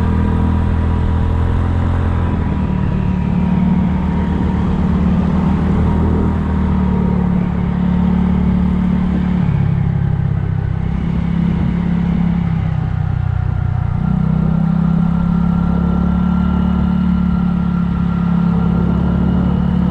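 Kymco People scooter engine and exhaust running under way, the engine note dropping and picking back up a few times as the throttle changes, then holding steadier in the second half.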